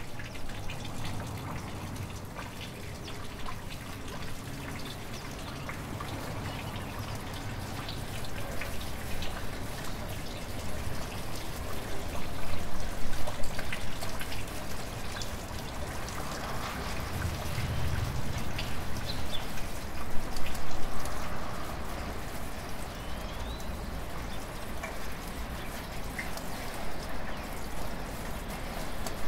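A thin stream of water trickling and splashing into the basin of the Manneken Pis statue fountain, followed by rain falling and dripping in a city street, with many small drop ticks.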